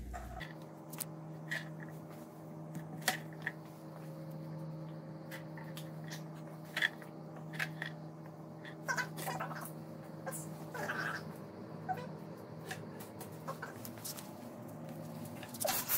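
Spatula clicking and scraping against a ceramic bowl as blueberries are folded into a cream filling, over a steady low hum. A dog gives a few short whines around the middle.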